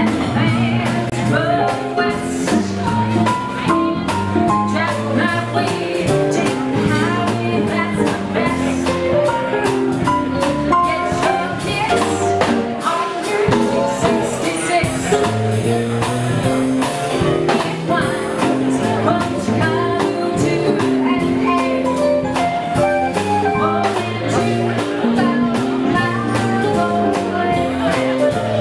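Live band music: a woman singing a melody over electric guitar, with a steady beat.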